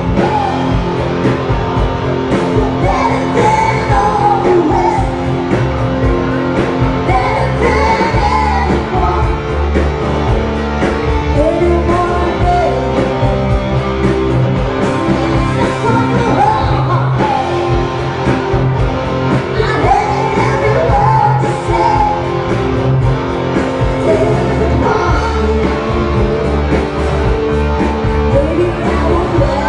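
Live rock band playing loudly, with a woman singing lead into a microphone over bass, drums and guitar.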